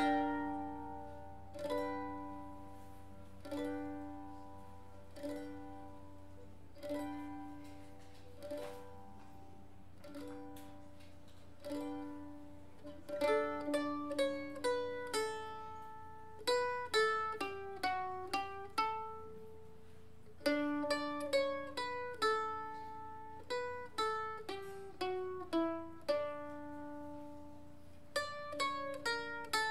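Solo mandolin played live: slow single plucked notes about every second and a half, then from about halfway quicker runs of notes, several falling in pitch. A faint steady low hum lies underneath.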